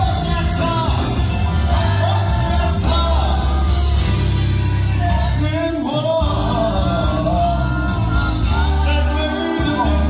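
Church choir singing with a band, over a strong, steady bass.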